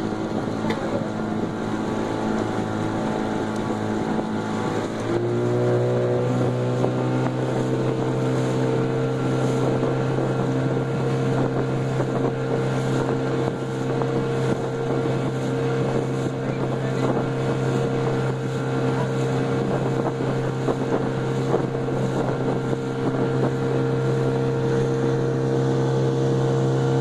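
Motorboat engine running, its pitch rising about five seconds in as the boat speeds up, then holding steady. Water rushes along the hull, with wind on the microphone.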